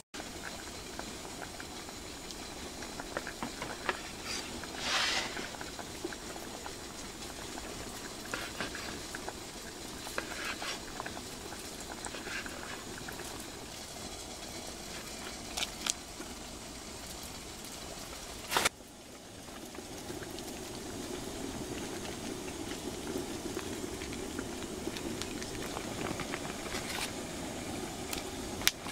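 A steel pot of water and soup boiling on a stove, bubbling and hissing steadily, with scattered light clicks and taps. There is one sharp knock about two-thirds of the way through, after which the bubbling grows fuller, and another short knock near the end.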